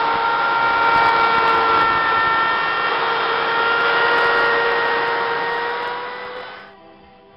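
Handheld router with a bearing-guided 1/2-inch round-over bit running at full speed, a steady high whine over the hiss of the bit cutting the edge of an elm guitar body. The sound stops abruptly about six and a half seconds in.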